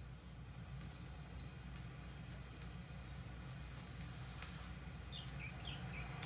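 Vinyl record playing faintly: short falling bird chirps about two a second, pitched lower from about five seconds in, over a steady low rumble with scattered clicks of surface noise.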